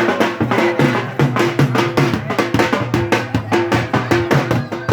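Loud, fast drumming from a percussion band: rapid strokes over a steady repeating beat.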